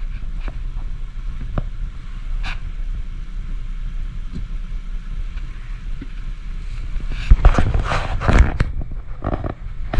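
Inside a car's cabin, the engine idles steadily while the windshield wipers sweep the glass. From about seven seconds in come louder scraping and rubbing noises.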